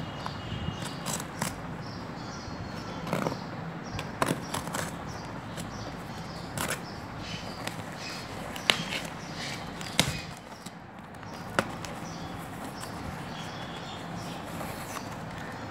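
Paper mailer envelope rustling and crinkling as it is handled and opened by hand, with a few sharp clicks or taps scattered through.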